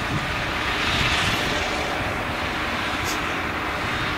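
Claas Jaguar 970 forage harvester with its MAN V8 engine running steadily under load while chopping maize, a dense even drone.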